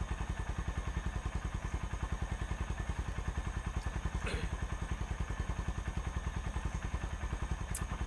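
A small engine idling steadily: an even, rapid low thudding of about ten beats a second. There is a brief short sound about four seconds in and a click near the end.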